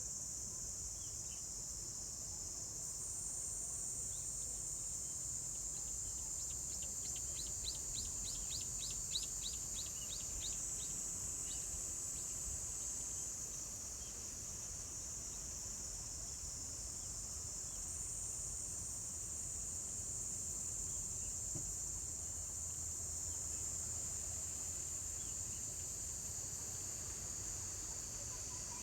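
A steady, high-pitched chorus of insects singing, with a run of about a dozen quick, evenly spaced chirps about a quarter of the way in.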